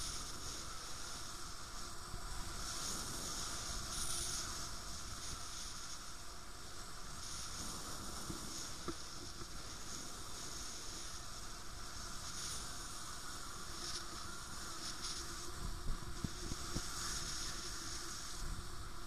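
Airflow rushing over a camera carried by a paraglider in flight: a steady hiss of wind that strengthens several times and then eases back.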